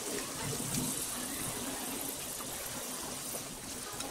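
Gram-flour-battered spinach leaves deep-frying in hot oil: a steady sizzle.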